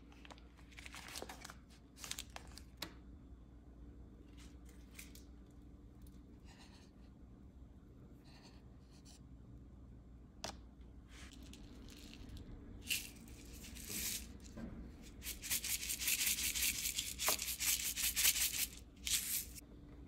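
Food packaging being handled: scattered small clicks and rustles, then about six seconds of dense crinkling and tearing of wrapper paper or plastic near the end.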